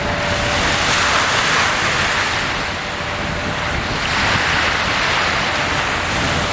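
Sea waves breaking and washing ashore, the surf swelling twice, about three seconds apart.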